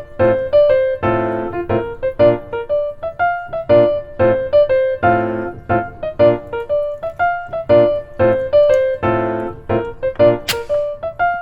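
Background music: a light piano or electric-piano tune of short, evenly paced notes. There is a brief sharp noise near the end.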